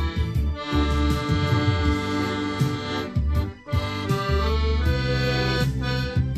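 Accordion playing a slow melody over held bass notes, with a brief break in the sound about three and a half seconds in.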